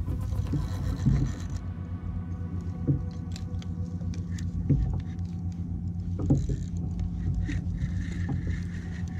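Spinning reel being cranked against a hooked fish from a fishing kayak: scattered clicks and knocks of the reel and gear over a steady low rumble of wind on the microphone and water around the hull.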